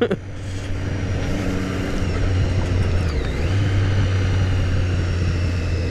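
Motorcycle engine, the 675 cc inline-three of a 2014 Triumph Street Triple R, running steadily while riding in traffic, with wind and road noise on the helmet microphone. The engine note shifts a little about two seconds in.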